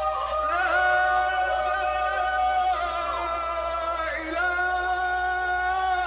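A solo voice singing or chanting long held notes that slide between pitches with ornamented turns.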